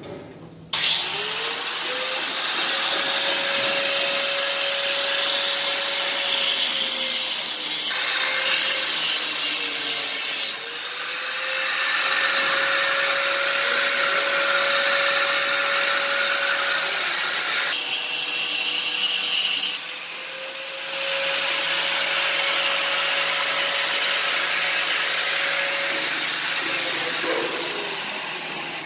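A handheld power tool running in three long spells under a loud hiss. Its motor whine climbs as it starts and slides down as it stops each time.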